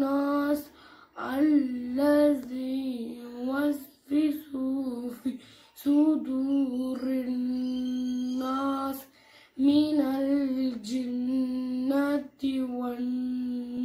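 A female voice reciting a surah of the Qur'an in Arabic, chanted melodically in long held notes, phrase by phrase, with short pauses for breath between.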